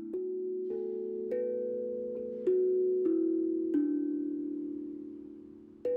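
Gentle background music: a slow melody of ringing notes, a new note struck every half second to second or so, each left to ring and fade.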